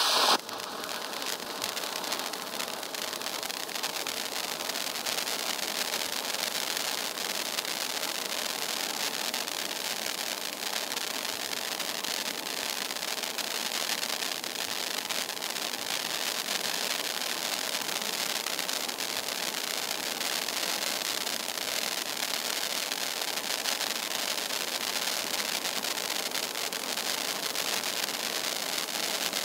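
Ground pyrotechnic fountain spraying a stream of silver sparks. A sharp flare-up right at the start as it comes to full output, then a steady hiss.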